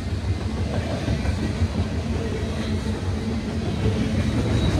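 Loaded centerbeam flatcars of a freight train rolling past: a steady rumble and clatter of steel wheels on rails.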